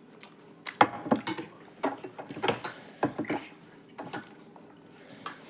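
Eating sounds: a quick run of short clicks, taps and scrapes against plates as a meal is eaten, busiest in the first half and thinning out afterwards.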